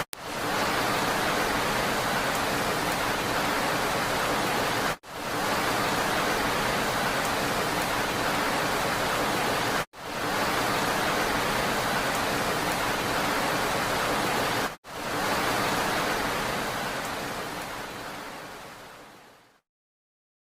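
Steady, even rain noise. It is cut by brief dropouts about every five seconds, where the recording loops. Over the last few seconds it fades away into about a second of silence.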